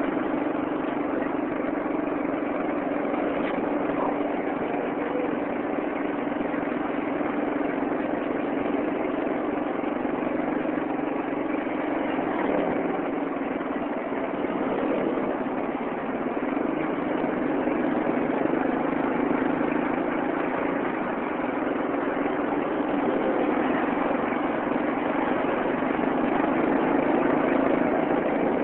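Vehicle engine running steadily in traffic: a continuous low hum with road noise. It swells slightly about two-thirds of the way through and again near the end.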